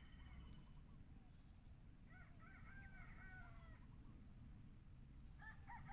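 Faint harsh calls of a bird in two bouts, about two seconds in and again near the end, over a low steady outdoor background.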